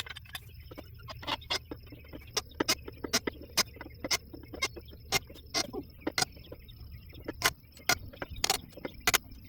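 A four-way lug wrench working the lug nuts on a trailer wheel: a long run of irregular sharp clicks and knocks, about one to two a second.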